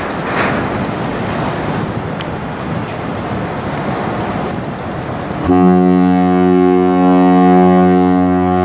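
Wind noise, then about five and a half seconds in the bulk carrier Algoma Mariner's ship horn sounds one deep, steady, loud blast that is still going at the end: a horn salute to the person on shore.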